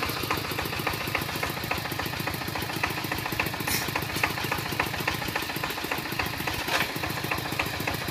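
Single-cylinder Kubota diesel engine of a walk-behind power tiller idling with a steady, rapid knock.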